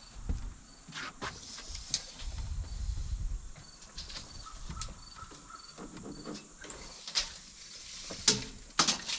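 Crickets chirping steadily, about two chirps a second, under scattered sharp clicks and knocks from hands-on work, the loudest near the end. A low rumble runs through the first few seconds.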